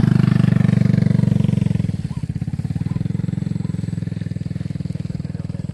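Small motorcycle engine running as the bike passes close by, loud for about the first two seconds, then dropping off while a lower, steady engine hum carries on.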